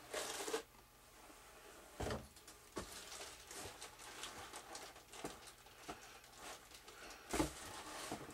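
Cardboard and balsa-wood kit parts handled inside a large cardboard box: scattered rustles, scrapes and light knocks, with duller thumps about two seconds in and near the end.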